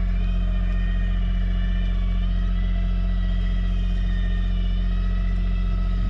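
Electric patio awning motor on a motorhome whining steadily as it retracts the awning, over the constant low hum of the coach's onboard generator.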